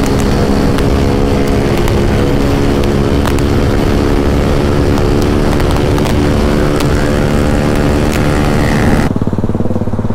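BMW G310GS single-cylinder motorcycle engine running at a steady cruising speed. Near the end the sound changes abruptly to a lower, evenly pulsing engine note.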